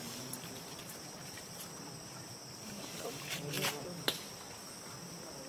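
Steady high-pitched drone of insects in the trees, with a few short clicks around three and a half to four seconds in.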